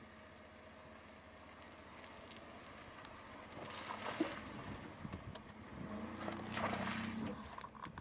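Chevy Colorado ZR2 pickup's engine running low as the truck crawls over rough off-road ground, growing louder through the second half. Tyres crunch over rocks and brush in short bursts about four and seven seconds in.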